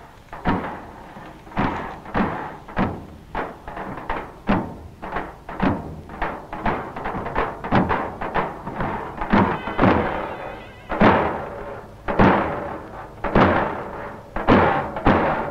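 Percussion music: a run of repeated drum strokes, about one or two a second.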